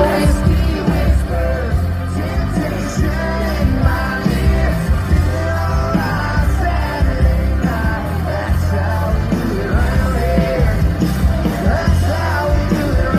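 Live country band playing loud through a concert sound system, with a lead singer over a heavy, steady bass and drums.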